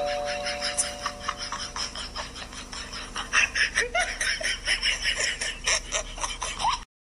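Two-tone ding-dong doorbell chime ringing out and fading over the first second or so, then laughter in short quick bursts from about three seconds in until the sound cuts off suddenly near the end.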